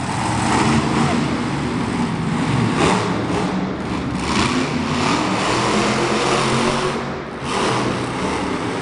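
Monster truck engine revving hard as the truck spins donuts, its pitch rising and falling, with a brief let-off about seven seconds in.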